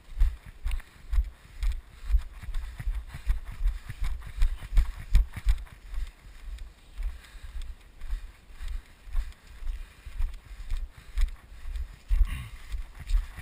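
Footfalls of a person jogging over grass and leaf litter: steady heavy thumps about twice a second, picked up through a body-worn camera.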